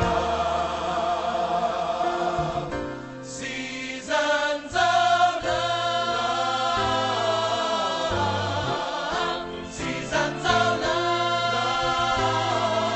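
Music with singing voices over a bass line.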